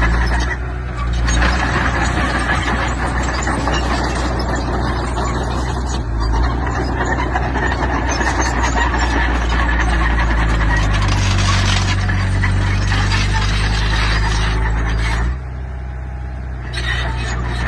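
Heavy diesel earthmoving machinery at work: a low, steady engine drone with a dense metallic rattle over it. It eases off briefly about three-quarters of the way through, then picks up again.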